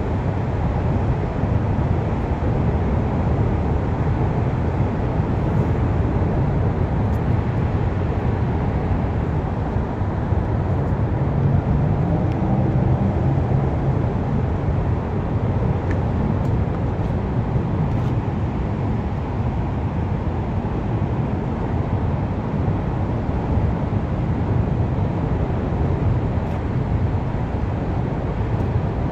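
Steady low rumble of road traffic, with a vehicle's engine hum standing out briefly about halfway through.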